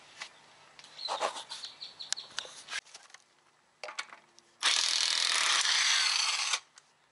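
Cordless 18-volt impact wrench loosening a truck's lug nut, running in one loud, even burst of about two seconds that stops abruptly, after a short blip and some clicking of the tool and socket being handled.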